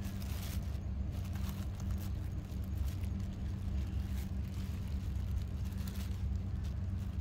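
Steady low machine hum, like a motor running, with faint light rustling clicks over it.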